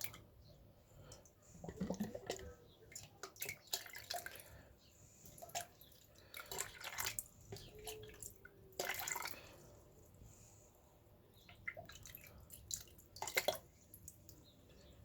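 Water splashing and dripping in short, irregular bursts as a small boiler filter is washed by hand, with clicks and knocks of handling.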